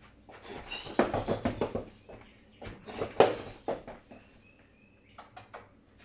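Rustling and knocking of things being handled, in two bursts of a second or two each, with a few lighter ticks near the end.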